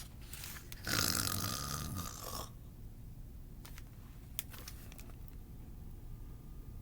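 A person giving one long, rough snore, starting about a second in. It is followed by quiet room tone with a few faint clicks.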